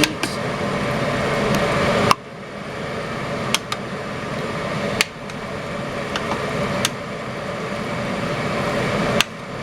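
A spoon stirring thick stew in a pot, with a few sharp knocks against the pot about every second and a half, over a steady background hum.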